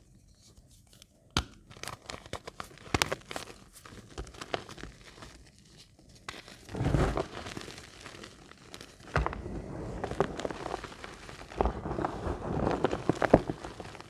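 Reformed gym chalk broken and crushed between the palms: a few sharp snaps as the slab breaks in the first three seconds, then long stretches of crumbling crunches as the pieces are ground into loose powder.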